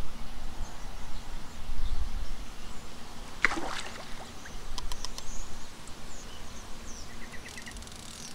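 A hooked fish splashing at the surface of the lake about three and a half seconds in, while it is played on a bent rod. A low wind rumble on the microphone comes before the splash, and a few sharp clicks follow it.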